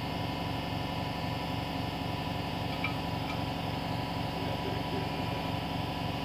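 A running machine's steady hum with a low pulsing beat about four to five times a second, and two faint ticks about three seconds in.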